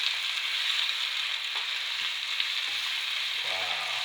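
Chopped onion, sweet pepper, tomato and scallion sizzling as they sauté in melted butter in a pot, a steady frying hiss.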